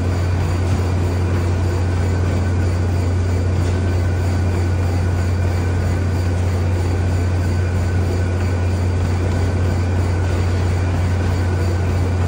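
Cybex treadmill running at a steady jogging pace: an even low motor hum with belt and deck noise underneath, unchanging throughout.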